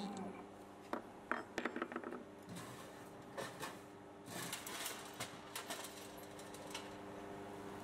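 Faint, irregular clicks and ticks from handling a CNC router's jog pendant, over a faint steady hum from the machine, while it is jogged to dial in a test indicator against a wooden pallet.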